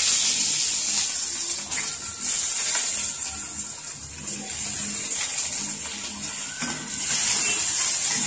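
Chopped onions sizzling in hot oil with cumin seeds in a kadai, a steady high hiss that eases a little in the middle and grows louder again near the end.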